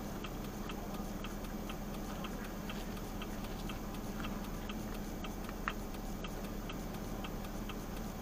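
Vehicle indicator flasher clicking steadily, about two and a half clicks a second, over the low hum of a running engine, with one louder click near the end.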